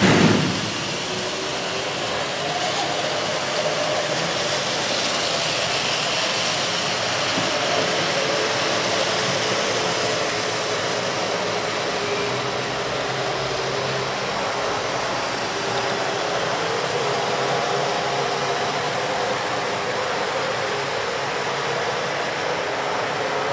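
Steady hiss with a faint whine that drifts slowly in pitch: a 7.5 mm scale metre-gauge model train running along the layout, its small electric motor and wheels on the track. A short falling whoosh sounds right at the start.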